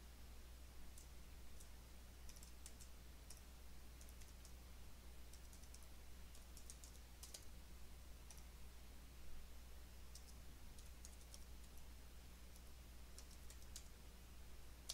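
Faint keystrokes on a computer keyboard, irregular taps in short scattered runs, over a low steady hum.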